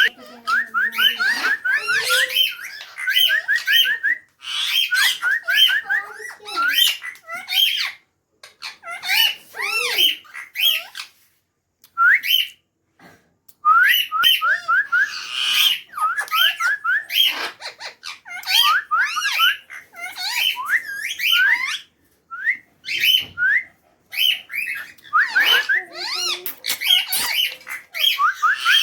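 Pet parrot calling in rapid runs of short rising chirps, several a second, mixed with squawks and whistled notes, coming in bursts with brief pauses.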